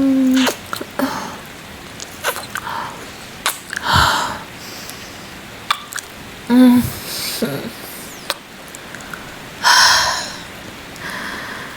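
Close-miked ASMR mouth sounds: scattered wet kissing smacks and clicks, three long breathy exhales, and a couple of short hummed voice sounds, over faint steady rain.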